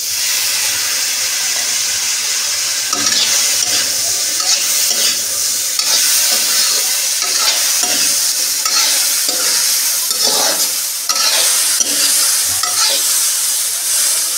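Boiled chickpeas dropped into a kadhai of bitter gourd slices frying in hot oil, setting off a sudden sizzle. A metal spatula then stirs and scrapes the pan in repeated strokes over the steady sizzle.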